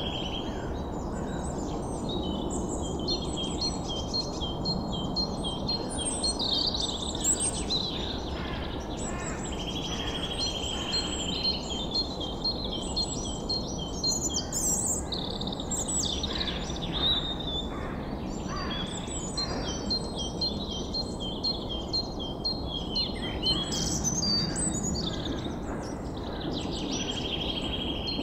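Nature ambience of many birds chirping and calling, with a steady high buzzing tone that comes and goes. A constant low rushing noise runs underneath.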